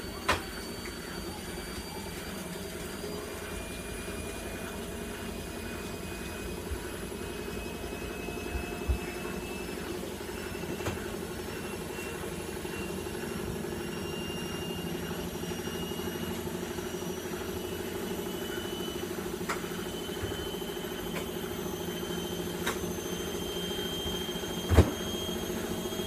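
Indesit front-loading washing machine in its spin cycle: a steady motor hum with a whine that climbs slowly in pitch as the drum speeds up. A few short knocks, the loudest near the end.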